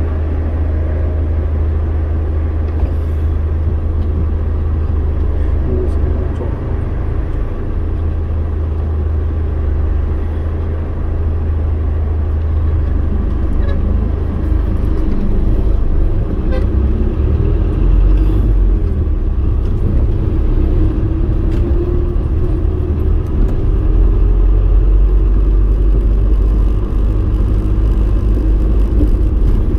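Steady engine and road rumble inside a moving kindergarten bus, heard from the cabin; the low rumble grows louder about halfway through.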